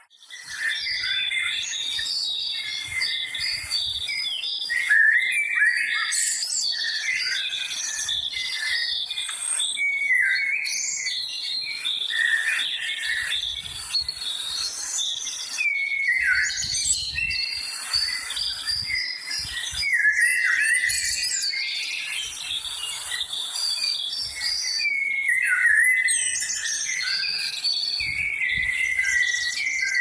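Birdsong: several birds chirping and whistling at once, short phrases and rising and falling notes overlapping without a break.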